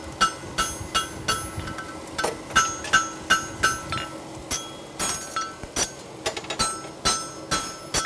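Forging hammer striking a hot steel horseshoe on an anvil, about three ringing blows a second with a couple of short pauses: overlapping blows ironing the shoe flat.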